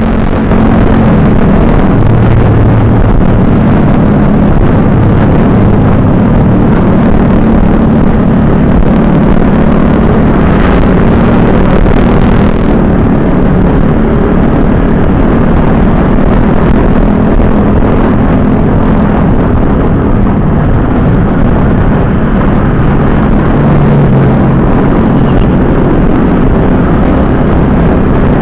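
Yamaha sport motorcycle's engine running steadily at cruising speed in fourth and fifth gear, heard under loud wind rush on the bike-mounted microphone.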